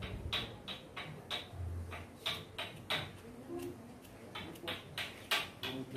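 Hairdressing scissors snipping through hair at the nape in a quick run of crisp snips, with a short pause a little past halfway.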